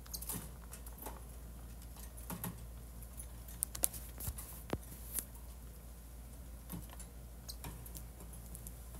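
Irregular light clicks and taps, a few sharper ones clustered midway, over a low steady hum.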